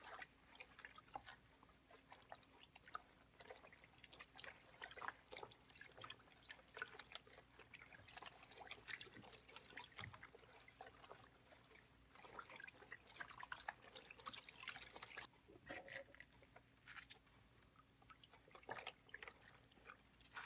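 Faint, irregular wet squishing and sloshing of a cloth being rubbed and kneaded in natural dye liquid by rubber-gloved hands in a plastic basin, quieter for a few seconds near the end.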